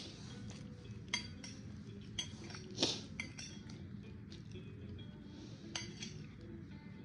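Light clinks of cutlery and dishes being handled, several sharp ringing taps spread out, with one louder short noisy burst about three seconds in, over a low steady hum.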